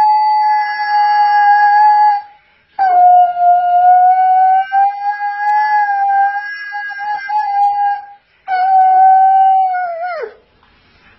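Husky howling: three long, steady howls with short breaks between them, the last one sliding down in pitch as it ends near the end.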